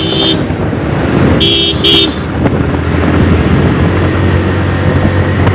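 Vehicle horn: a long blast cutting off just after the start, then two short toots about a second and a half and two seconds in, over the steady low rumble of a motorcycle ride on the road.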